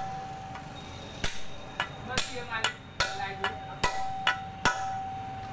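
Sharp metal taps and clinks, about nine of them spread over four seconds, from work on a steel truck drum brake shoe and its rivets while new lining is fitted. A ringing metal note hangs on between the taps.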